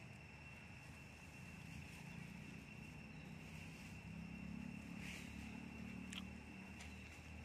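Faint outdoor ambience: a low rumble that swells a little in the second half, a thin steady high-pitched whine throughout, and one brief squeak falling in pitch about six seconds in.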